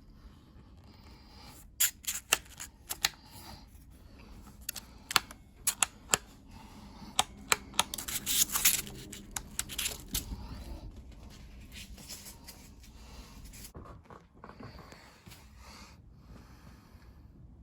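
Unboxing noise: a string of sharp clicks and snaps with a stretch of rustling and tearing about eight seconds in, then quieter handling.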